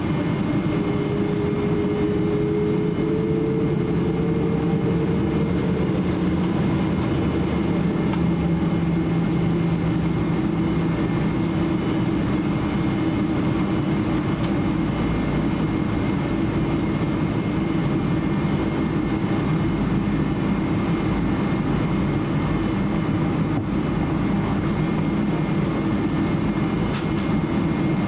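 Steady cabin noise of a Boeing 777-300 airliner taxiing: a low rumble from the engines and rolling undercarriage, with a thin steady high whine. A fainter tone rises slightly a few seconds in.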